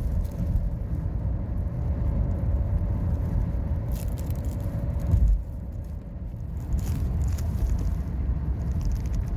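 Nissan X-Trail T32 being driven, a steady low road and tyre rumble with no rear wheel-bearing hum, its rear right hub bearing newly replaced. A brief louder bump comes about five seconds in, and the rumble drops for a second after it.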